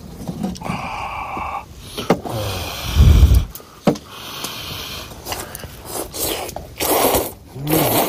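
Scraping and rustling from serving curry udon out of a pot, with a heavy bump about three seconds in and more scraping bursts near the end.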